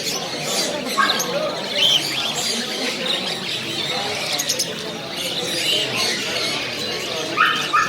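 Many birds chirping and squawking together, with a loud squawk near the end, over a constant murmur of voices.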